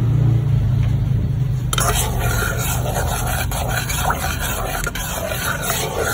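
A spoon stirring and scraping around a saucepan of thick white sauce: irregular scratchy strokes with small knocks against the pan. These start about two seconds in, after a steady low hum.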